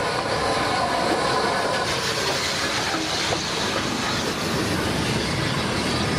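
Rebuilt Bulleid West Country class steam locomotive No. 34046 and its coaches running in along a station platform close by: a steady rumble of wheels clicking over the rail joints.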